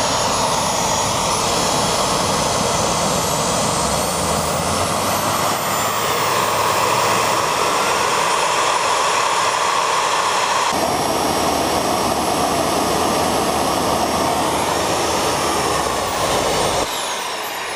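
Homemade kerosene-fired turboshaft engine burner running flat out: a steady, jet-like noise with a thin high whine above it. Near the end the fuel is shut off, the low part of the noise drops away suddenly, and the whine falls as it spins down.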